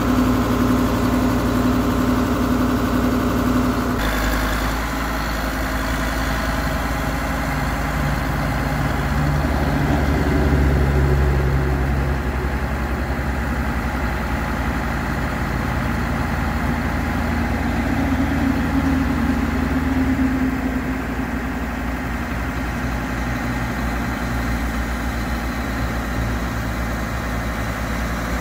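Kubota M110 tractor's diesel engine running, with the front loader's bucket being worked; the engine note changes abruptly about four seconds in, then swells and eases twice.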